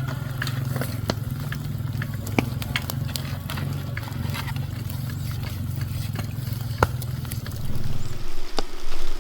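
A low steady rumble with scattered sharp crackles and clicks. A little before the end it cuts off and louder sizzling of food cooking takes over.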